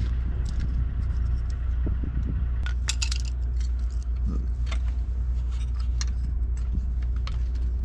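Small plastic clicks and rattles from the transfer case shift motor's wiring plug and its red retainer being pushed in and handled, with a dense run of sharp clicks about three seconds in. A steady low hum runs underneath.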